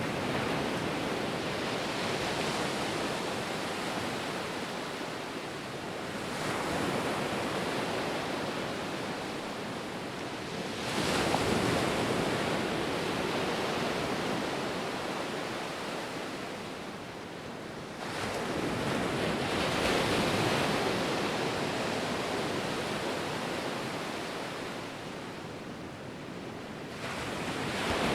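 Ocean surf: waves breaking and washing in, the noise swelling and ebbing in surges every several seconds.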